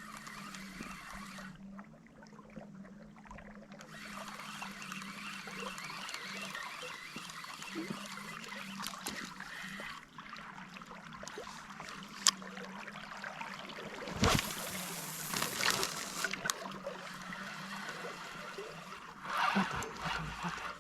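River water trickling and lapping, with a sharp click about 12 seconds in and a louder splashing rush about two-thirds of the way through.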